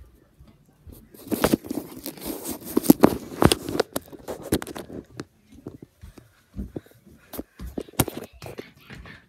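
Rustling and crinkling with many sharp clicks and knocks, dense from about a second in for some four seconds, then thinning to scattered knocks.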